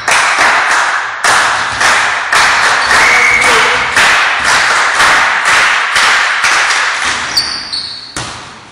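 Rhythmic clapping in unison, about two claps a second, each clap echoing in the sports hall; the clapping stops about eight seconds in.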